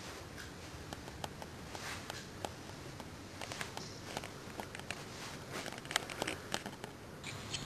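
Faint handling noise: scattered light clicks and rustles over a steady hiss.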